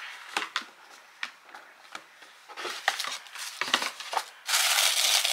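Packaging being handled: scattered small clicks and knocks, then a loud, steady rustling and crinkling that begins about four and a half seconds in.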